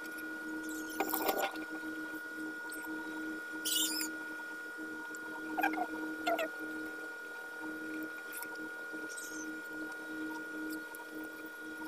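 A steady, slightly pulsing hum, broken by a few brief high squeaks and clicks: one about a second in, a wavering chirp near four seconds, and two short sounds around six seconds.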